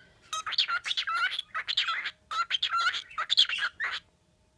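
Pet birds chattering: a fast run of short, varied chirps and warbles that stops about four seconds in.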